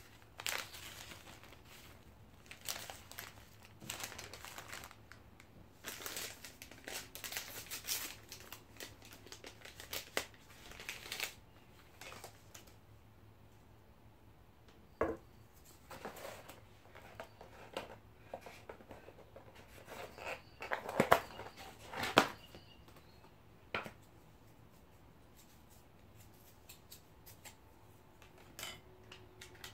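Paper and takeaway packaging rustling and crinkling on a table as a paper cutlery sleeve is torn open, napkins and a paper hash brown bag are handled, and a pancake box is opened. A single sharp click comes about halfway; the loudest crinkles come a little after it, and the handling grows quieter near the end.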